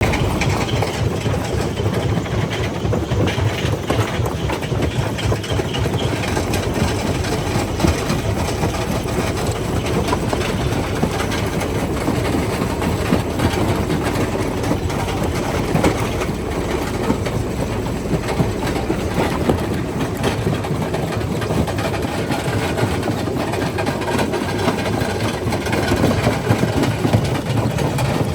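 Primary jaw crusher running, a steady heavy mechanical rumble with continual clatter and knocking of rock being broken.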